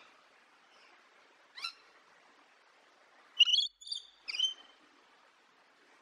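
Rainbow lorikeet calling: one short call about one and a half seconds in, then a quick run of three or four loud calls in the second half.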